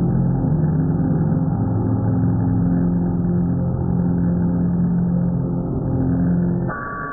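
The DVD logo sound slowed down drastically, heard as a deep, drawn-out drone of several low held tones. Near the end it turns quieter and shifts to a higher held tone.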